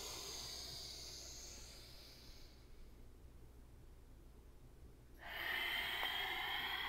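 A woman breathing audibly in a yoga flow: a long breathy inhale as she lifts halfway up, fading out after about two and a half seconds. After a pause, a louder, steady exhale begins about five seconds in as she folds forward.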